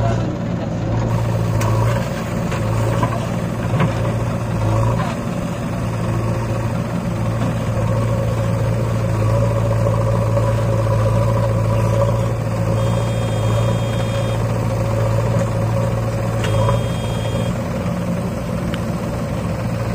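Tractor diesel engine running at a steady speed, a continuous low drone that holds its pitch throughout.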